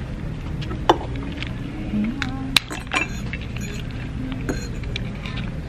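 Crab-leg shells being cracked and picked apart: scattered sharp cracks and clicks, the loudest about a second in and again about two and a half seconds in, with light clinks of dishes and cutlery over a steady low hum.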